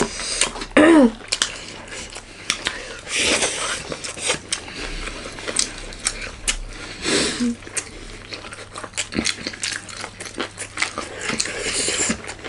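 Close-up eating sounds: moist chewing and smacking with many small clicks. There are two longer breathy hisses about three and seven seconds in, and a short hummed "mm" near the start.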